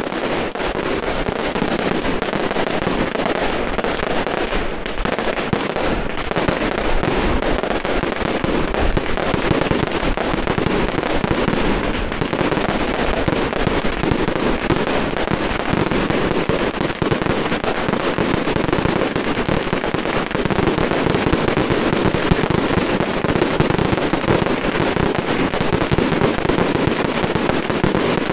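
Firecrackers going off in a dense, unbroken rapid crackle that does not let up, at a steady loud level.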